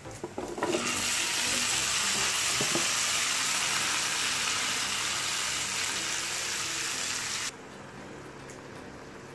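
Pumpkin (calabaza) cubes tipped into a hot pan of sautéed garlic and onion: a few soft knocks as they land, then loud, steady frying sizzle. The sizzle cuts off abruptly about seven and a half seconds in, leaving the quieter bubbling of coconut milk simmering.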